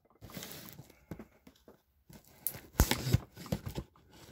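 Cardboard box flaps being pulled open by hand: quiet at first, then a few sharp tearing and scraping noises in the second half.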